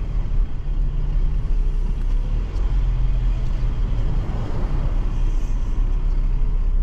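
Car engine running, heard from inside the cabin as a steady low rumble; around the middle a rush of noise swells and fades.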